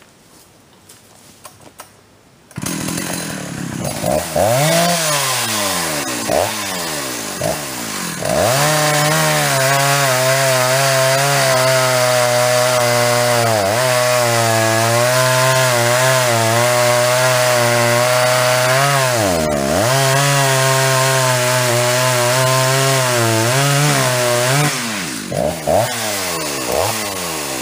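Big-bore Jonsered two-stroke chainsaw starting up a couple of seconds in and revved a few times, then held at full throttle cutting through a log, its pitch dipping briefly twice under load. Near the end it drops back to idle with a few short blips.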